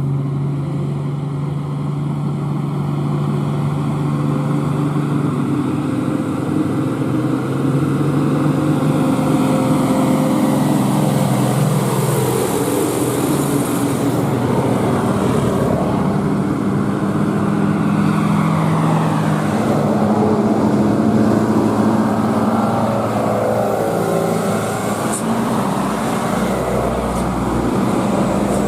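Heavy diesel truck engine running hard under load, its pitch sinking and then climbing again partway through.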